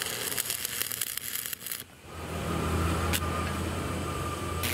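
Arc (stick) welding on iron: the electrode crackles and sizzles with dense sharp pops for about two seconds, then the arc stops and a steady low electric hum, the welding transformer, carries on, with a single short crackle about three seconds in.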